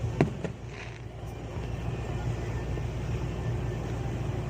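Two sharp firework pops in the first half second, over a steady low rumble.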